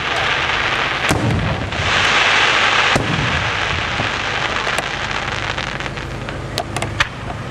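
Aerial firework shells bursting overhead: sharp booms about every two seconds, each with a rolling tail. A loud rushing hiss fills the sound between about two and three and a half seconds in.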